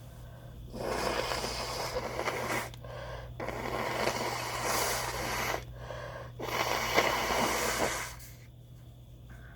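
A person taking three long, noisy breaths, each about two seconds, while working up a sneeze against a tickle in the nose.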